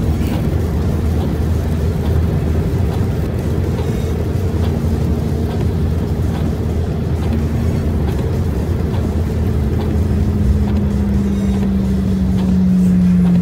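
Car driving on a wet freeway heard from inside the cabin: a steady engine and road drone with the hiss of tyres on the wet road. Near the end a humming tone grows louder and drops slightly in pitch.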